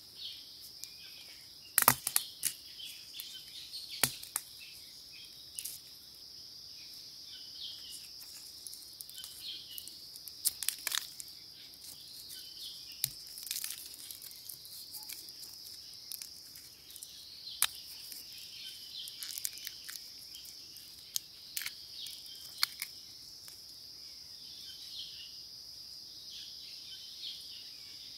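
Steady high-pitched insect chorus, with scattered sharp crackles and snaps as ear-shaped fungus is torn from tree bark and dry leaf litter is handled.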